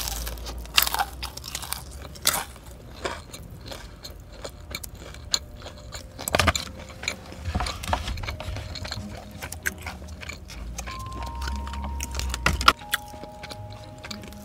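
Close-miked biting and chewing of a crispy battered fried chicken skewer: irregular crunches as the coating breaks between bites.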